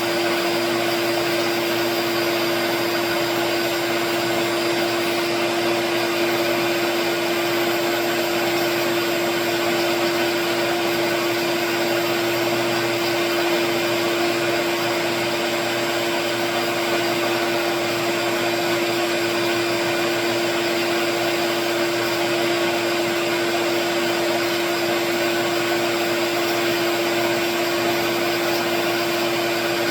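Small wood lathe running steadily with a constant motor whine, its spinning pen blank being sanded smooth.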